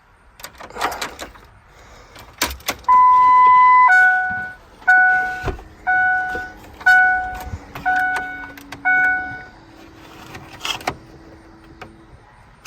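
Ford F-150 dashboard warning chime as the ignition is switched on: one steady beep about a second long, then six decaying dings about one a second. Scattered clicks come before and after it. No blower motor is heard, so the fan still does not come on after the new fuses.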